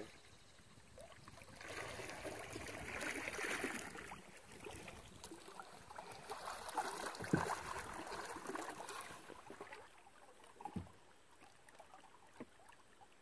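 River water splashing and lapping around a small boat as someone wades alongside, with a couple of soft knocks; it dies down near the end.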